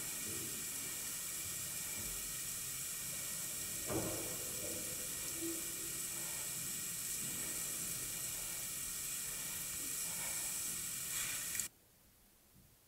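Steady background hiss of the recording, with a faint knock about four seconds in. It cuts off abruptly near the end into dead silence.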